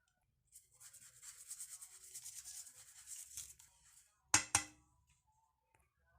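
A rasping rubbing sound for about three seconds, then two sharp knocks in quick succession.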